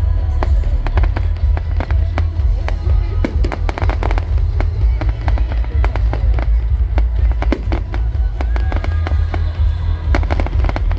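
Fireworks display going off continuously: dense, rapid crackles and bangs from exploding shells, many overlapping each second.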